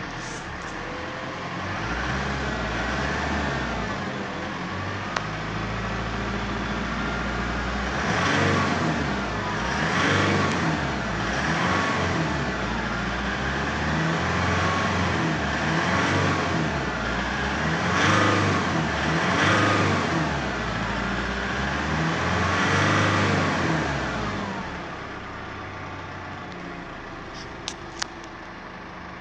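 2011 Nissan D40 Navara's 2.5-litre four-cylinder turbo-diesel running, heard from inside the cab: idling at first, then revved up and let back down repeatedly, about every two seconds, from about eight seconds in, before settling back to idle near the end.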